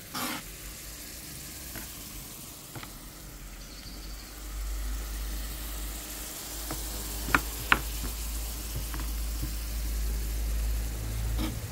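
A knife cuts smoked pancetta on a plastic cutting board, giving a few separate knocks, the loudest two close together past the middle, over a faint steady sizzle of chopped onion frying in olive oil. A low rumble comes in about halfway.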